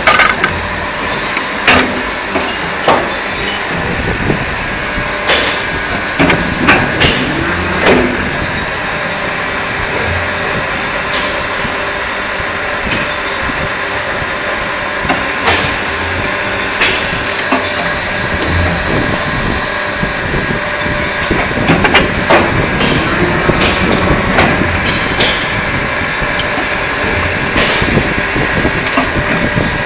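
Two-colour PVC shoe injection moulding machine running with a steady mechanical noise, broken by irregular sharp metal clanks and knocks.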